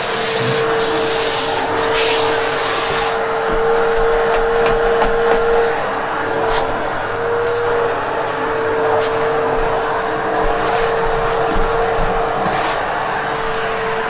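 Vacuum cleaner running steadily over carpet during a pre-vacuum, with a steady motor whine and brief hissing bursts now and then as it moves over the pile.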